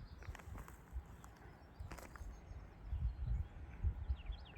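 A small bird chirping in a quick series of short, falling notes near the end. Under it are low thumping rumbles on the microphone from about three seconds in, and a few sharp clicks earlier.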